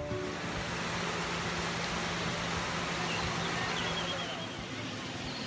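Outdoor ambience: a steady rushing noise with a low steady hum that shifts slightly higher in pitch a little past halfway, and a few faint high chirps in the second half.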